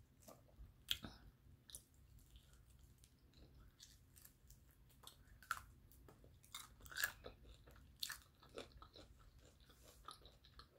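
Faint, close-up chewing and biting of crunchy breaded fried chicken. Irregular crisp crunches and mouth clicks, the loudest about a second in and about seven seconds in.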